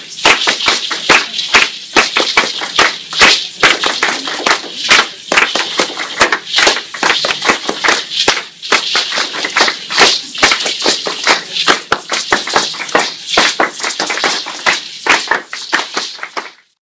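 A group of people clapping their hands together in a rhythmic pattern, many sharp claps a second, until the sound cuts off near the end.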